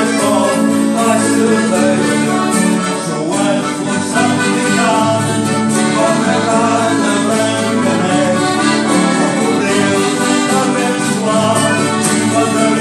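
Piano accordion and acoustic guitars playing a tune together, the accordion's sustained chords and melody carrying it.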